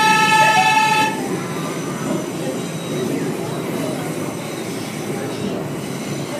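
A New York City subway train's horn sounds a steady chord that cuts off about a second in, followed by the steady rumble of the train running on elevated track.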